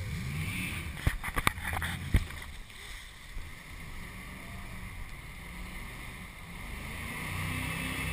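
Jet boat under way at speed, its engine running with revs climbing at the start and again near the end, over a steady rush of churning water along the hull. A few sharp knocks come in the first couple of seconds.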